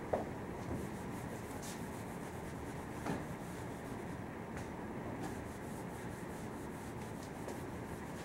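Whiteboard eraser rubbing back and forth across a whiteboard, wiping off marker, with a couple of light knocks.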